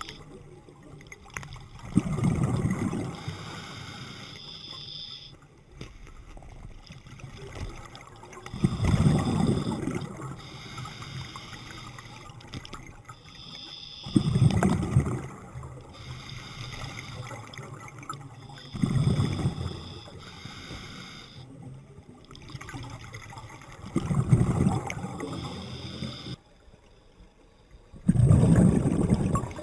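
A scuba diver breathing underwater through a regulator: a bubbling rush of exhaled air about every five seconds, six times, with a fainter hiss between the breaths.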